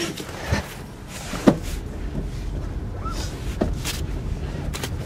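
Inside a car cabin: a low rumble of the car under way that builds after the first second or two, with a few sharp clicks and knocks, the loudest about a second and a half in.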